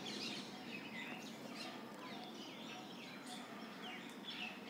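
Birds chirping, many short quick chirps overlapping.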